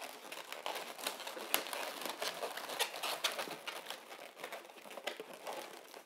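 Inflated 260 latex twisting balloons rubbing and squeaking against each other as a yellow balloon leg is pushed in between white balloon bubbles: an irregular run of short crackles and squeaks.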